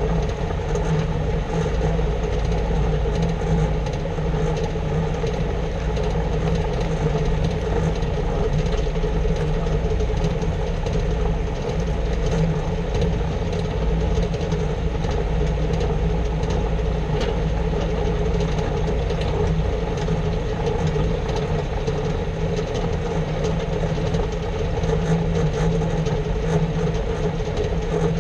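Steady running drone and road noise of a Jeep Wrangler JK heard from underneath the vehicle, with the rough grinding noise from its running gear that is being investigated.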